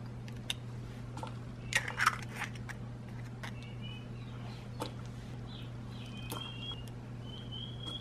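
Eggshells crunching and clicking as eggs are cracked and separated by hand, with a louder cluster of crunches about two seconds in and a few single clicks after.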